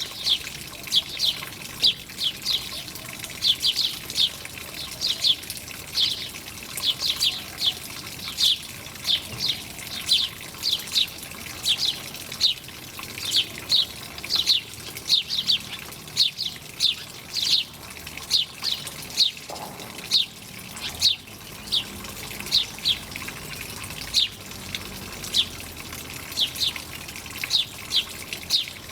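Small bird chirping over and over, short falling chirps about two a second, some in quick pairs, over a steady sound of running water.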